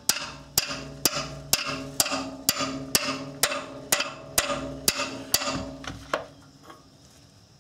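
A 3-pound hammer tapping the end of a steel open-end wrench, about two even metallic strikes a second, the wrench ringing after each blow, with one last tap a little after six seconds. The blows are breaking a rusted-in rear oxygen sensor loose from the exhaust pipe.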